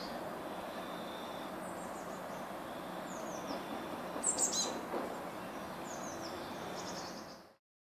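Blue tits giving short, high, falling chirps every second or two over a steady background hiss, the loudest cluster about four seconds in. The sound cuts off suddenly near the end.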